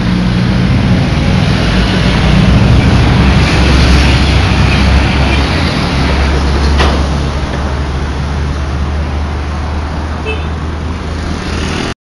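Heavy trucks passing close by on a road: diesel engines rumbling and tyres hissing as a light truck and then an empty flatbed semi-trailer go by, with a sharp click about seven seconds in.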